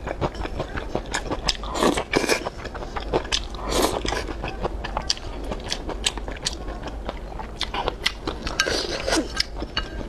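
Close-miked chewing and wet mouth sounds of someone eating soft braised pork belly and rice, with many small sharp clicks throughout, some from chopsticks tapping the bowls.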